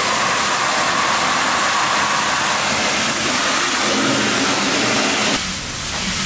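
Fire hose nozzle discharging a powerful water jet: a loud, steady hiss that cuts off abruptly about five seconds in.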